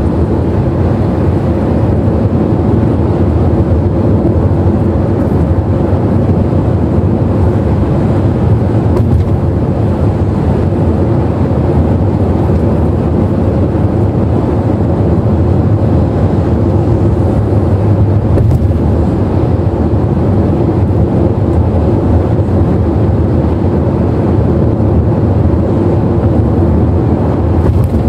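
Steady low drone of tyre and engine noise heard inside a car cabin cruising at highway speed.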